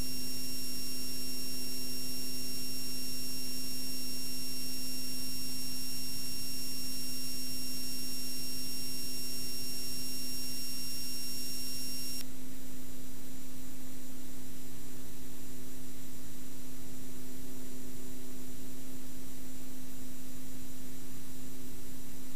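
Steady hum and hiss on the King Air B100's cockpit intercom audio between radio calls, the drone of its turboprop engines coming through the feed. A faint high tone in the hiss cuts off about halfway through.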